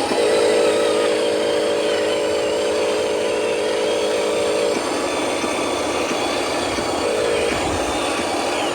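Radio-controlled truck running, with a steady buzzing engine-like drone that drops away a little under five seconds in, leaving a steadier mechanical running noise.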